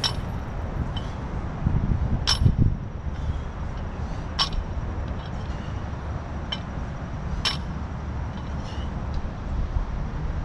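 Iron barbell plates clinking against the bar a few times, sharp single clinks as the loaded barbell is lifted and moved, over a steady low rumble.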